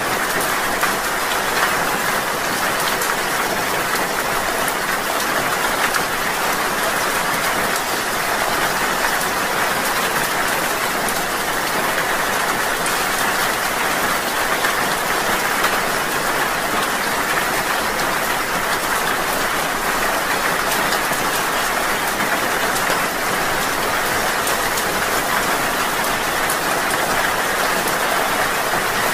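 Steady rain falling: an even hiss with a fine patter of drops.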